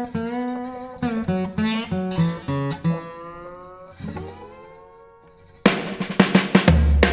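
Music: an acoustic guitar picks single notes that ring out and fade. About five and a half seconds in, a full band comes in much louder with drums and bass.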